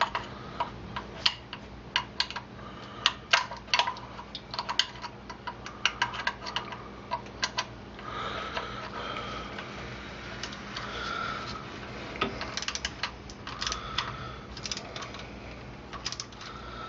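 Ratchet wrench clicking in quick bursts as the bolts of a new thermostat housing are tightened down, with a break in the clicking about midway.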